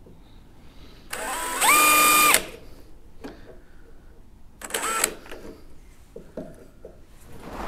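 Power drill running in two bursts: the motor spins up to a steady high whine for about a second, stops, then runs again briefly about five seconds in.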